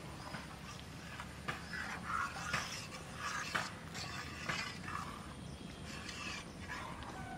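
A metal ladle stirring watery mashed mung dal in a metal karai: sloshing and scraping, with a few sharp clinks of ladle on pan.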